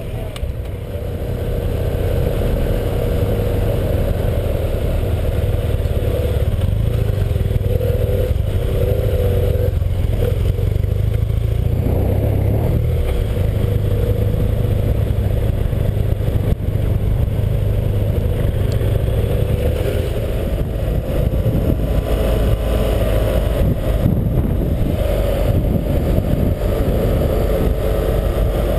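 BMW GS parallel-twin motorcycle engine pulling away about a second in, then running steadily with shifts in pitch as it rides a gravel track. Heavy wind noise comes through on the helmet-mounted camera.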